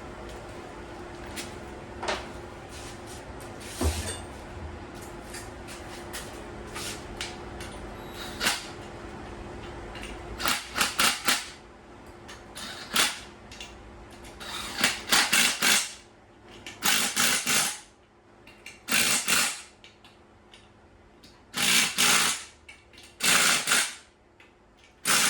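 Power drill run in about eight short bursts of up to a second each, from about ten seconds in, driving bolts home. Before that there is a steady hum and a few light clicks of tools being handled.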